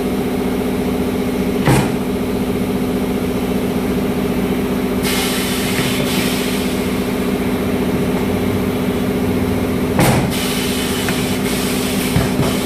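Steady hum of tyre-shop machinery running, with two sharp bursts, about two seconds in and again about ten seconds in, and a stretch of hiss between about five and ten seconds.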